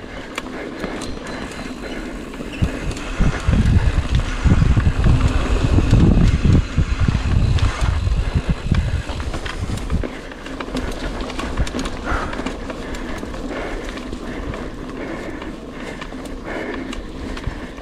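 Rockrider AM 100S mountain bike riding over a rough forest trail: tyres on the ground and the bike rattling, with many quick clicks and knocks. A heavy low rumble builds about three seconds in and eases off near ten seconds.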